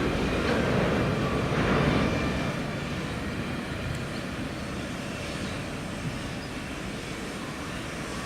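Freight train rumbling past on the line, its noise fading after about two seconds as it moves away, leaving a low steady rumble.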